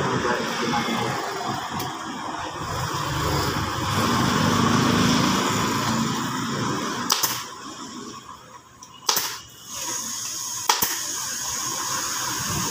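Pneumatic staple gun firing three sharp shots about two seconds apart while a motorcycle seat cover is stapled down, over steady background noise.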